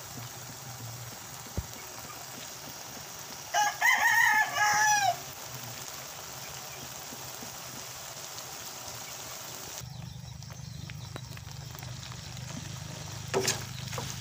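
A rooster crows once about four seconds in, a single call of about a second and a half and the loudest sound here. Under it runs the steady low hiss of shrimp simmering in a wok.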